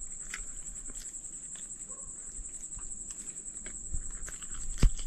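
Night insects, crickets, keeping up a steady high-pitched trill. Scattered small clicks and taps sound over it, with one sharper knock near the end.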